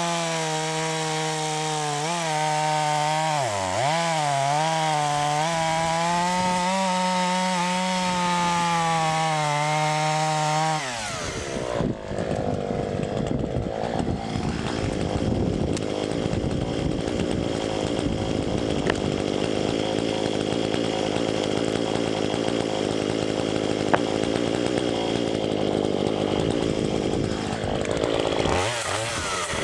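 Chainsaw running at high revs while ripping lengthwise through a forked oak log, its pitch dipping briefly under load. About eleven seconds in the sound turns rougher and less tonal as the cut goes on, and near the end the engine pitch rises and falls again.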